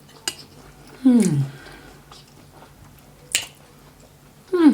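Eating at a table: faint chewing with a couple of clicks, broken by two short voiced sounds, one falling in pitch about a second in and another near the end.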